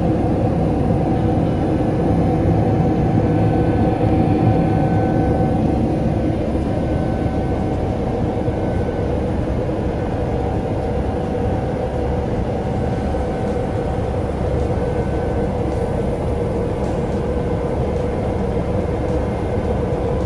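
Steady cabin noise of a Boeing 777-200LR's GE90 engines and rushing air during the climb after take-off. It is an even drone with a faint hum at a few fixed pitches.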